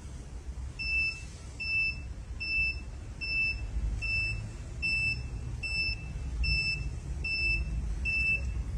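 Digital weighing indicator of a stainless steel platform scale beeping over and over, a short high beep a little more than once a second, with a low rumble underneath.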